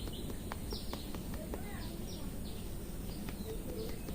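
Small birds chirping repeatedly over a steady background hiss, with a few sharp clicks in the first half.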